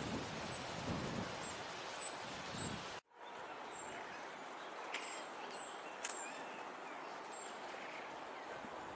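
Outdoor park ambience: a steady background hiss with short, high-pitched chirps from small birds recurring every second or so. There is a low rumble in the first three seconds, the sound cuts out briefly about three seconds in, and two sharp clicks follow a couple of seconds later.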